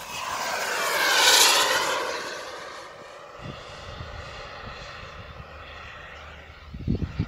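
Radio-controlled model jet making a fast low pass: its whine swells to a loud peak about a second in and falls away, then carries on as a steady, fainter whine.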